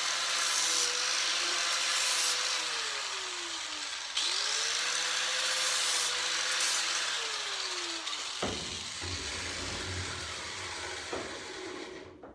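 Handheld electric grinder dressing the notched end of a steel roll-cage tube, run in two bursts: it spins down about 3 s in, spins back up and grinds again, then winds down. A sharp knock and quieter handling of the metal follow near the end.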